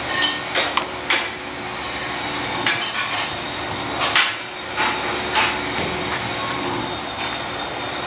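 Sharp, irregular clicks and clinks of a hand tool knocking against a small metal tin and scraping on a mixing board as a paste is scooped out and mixed, over a steady background machine hum.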